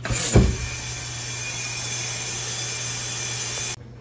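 A clunk, then a steady hiss of compressed air from the pneumatic press that cuts off suddenly near the end.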